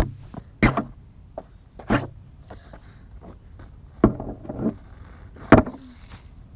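Five sharp plastic knocks and clatters, irregularly spaced a second or more apart, each followed by a brief rattle: a K'NEX toy car and its pieces knocking on the pavement.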